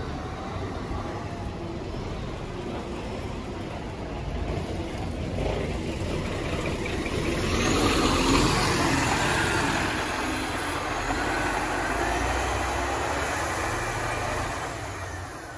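Diesel engine of a passenger coach pulling away and passing close by. It grows louder to a peak about eight seconds in, with a hiss over the engine, then eases off as the coach drives away.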